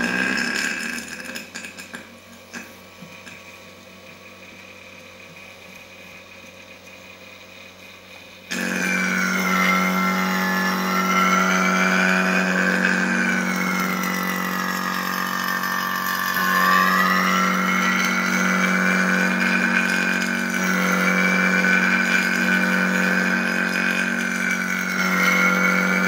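Small rotary-vane vacuum pump switched on about eight seconds in and running steadily, pulling a vacuum on an air conditioner's refrigerant lines through a manifold gauge set. Its pitch drifts slowly up and down as it pulls down.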